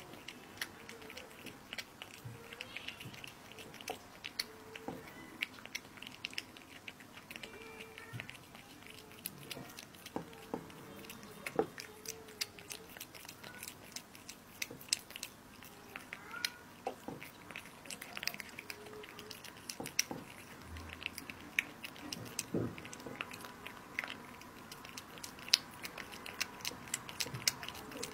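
A cat eating raw minced meat, chewing and smacking, heard as a steady run of small clicks at an uneven pace.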